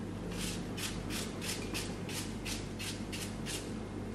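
Onion being cut up by hand in quick, even strokes, about four a second, each a short scratchy rasp.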